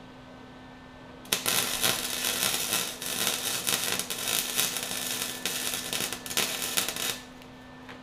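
Electric arc welding a bead around the steel axle sleeve of a concrete mixer's wheel: the arc crackles and sputters steadily for about six seconds, starting about a second in and stopping shortly before the end. A steady low hum runs underneath.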